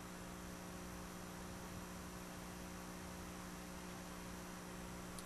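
Faint, steady electrical mains hum: one low tone with a stack of higher overtones, unchanging.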